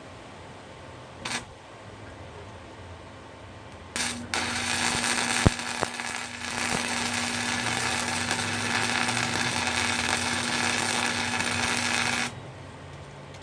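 Electric arc welder welding steel: a short arc strike about a second in, then from about four seconds in a loud, steady hiss with a low hum that runs for about eight seconds and stops.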